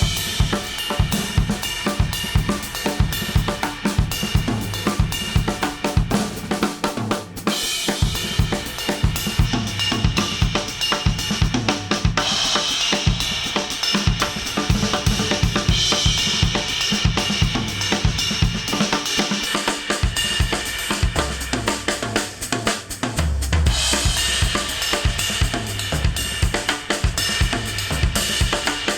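Instrumental music with a full drum kit (kick, snare, hi-hat and cymbals) keeping a steady beat, played back through studio headphones and recorded with an artificial-ear measurement microphone.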